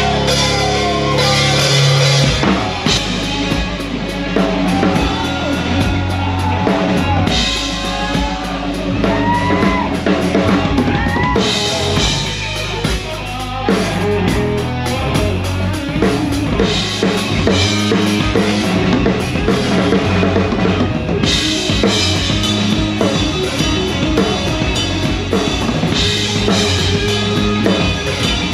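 A live rock band playing loudly on stage, with drums, bass guitar and electric guitar; the drum kit is the most prominent, with kick drum and snare heard up close.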